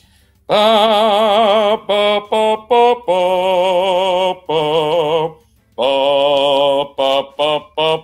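A man's voice singing a melody in an operatic style with wide vibrato: long held notes broken by short quick ones, pausing briefly about five and a half seconds in.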